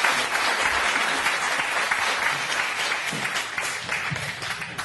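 Audience applauding, the clapping dying down toward the end.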